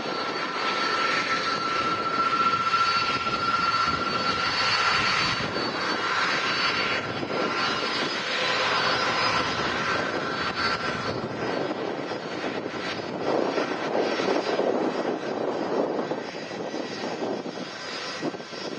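Airbus A330-200 airliner's twin turbofan engines running at low taxi power, a steady jet roar with a thin high whine that fades about eleven seconds in.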